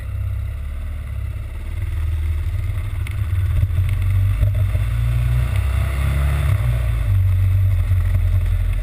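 Honda XR650L single-cylinder motorcycle running at road speed, with heavy wind rumble on the microphone; the noise grows louder about two seconds in.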